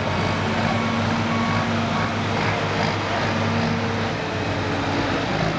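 John Deere 6030 pulling tractor's turbocharged six-cylinder diesel running steadily under load, a constant, even drone.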